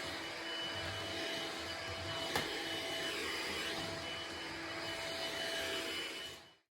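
Steady whirring of an electric motor, like a household appliance, with a thin steady whine over a broad hiss. There is a single click about two and a half seconds in, and the sound dies away near the end.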